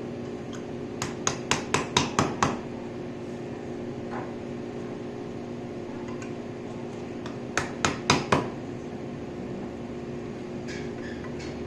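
Quick mallet taps on an EZTube boltless frame, seating its tubes into the connectors. A run of about seven sharp strikes comes a second in, and a shorter run of about five comes about two-thirds through, over a steady low hum.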